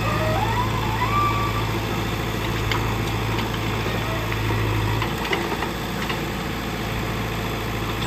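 Diesel engines of a JCB 3DX backhoe loader and a tractor running steadily while the backhoe arm works. The low steady drone drops away about five seconds in, and a few light clicks sound over the engine noise.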